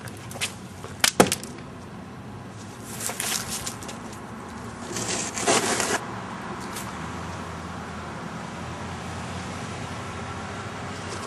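Road traffic going by, with a noise swell that builds and drops off about five to six seconds in, and a few sharp knocks about a second in.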